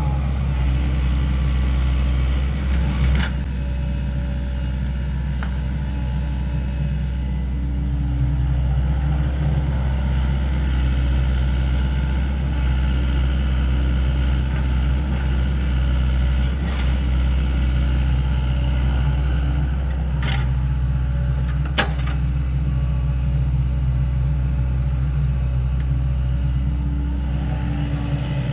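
Sany SY75 mini excavator's diesel engine running steadily while it digs and moves soil, with a few short sharp clanks from the working machine, the loudest about 22 seconds in.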